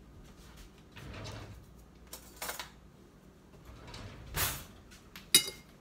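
Kitchen drawer sliding open and shut while a fork is fetched: a few soft sliding scrapes, then one sharp metallic clack near the end.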